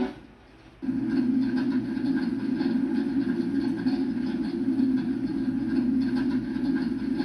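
A short click, then a steady low mechanical rumble that starts abruptly about a second in and runs on unchanged, like a dubbed-in engine or train sound effect.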